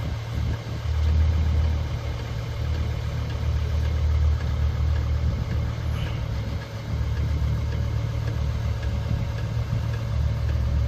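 Chinese 5 kW diesel air heater running with a steady low rumble from its burner and combustion fan, turned down to its lowest setting and ramping down.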